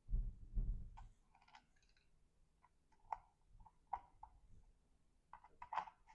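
Scattered light clicks and taps of small screws and a screwdriver being handled while a launcher is reassembled, with a low handling rumble in the first second.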